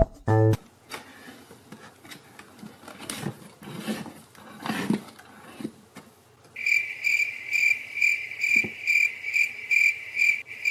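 Cricket chirping, one steady high chirp about twice a second, starting abruptly about six and a half seconds in. Before it, only faint rustling and soft taps.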